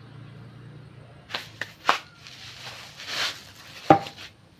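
Knocks and clanks of workshop material and tools being handled: three sharp knocks in quick succession, a short scraping rush, then a louder clank that rings briefly near the end.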